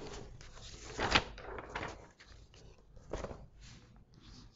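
Chalk writing on a chalkboard: short scratches and taps as words are chalked up, the two sharpest strokes about a second in and about three seconds in.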